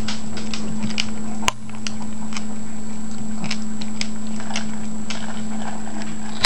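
A Shih tzu eating dry kibble from a stainless steel bowl: irregular light crunches and clicks, several a second, with one sharper click about a second and a half in, over a steady low hum.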